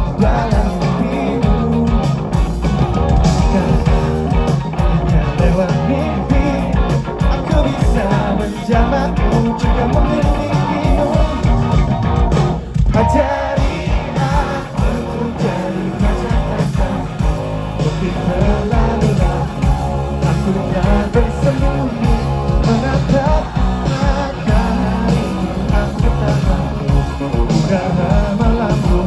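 Rock band playing a song live, with a lead singer over electric guitars, bass and drums.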